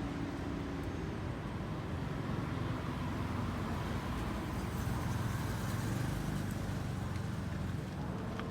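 Steady low engine rumble, swelling slightly in the middle.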